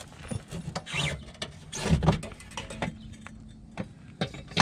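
Irregular clicks, knocks and rubbing of a metal exhaust axle-back pipe being handled and pushed onto its rubber mounts.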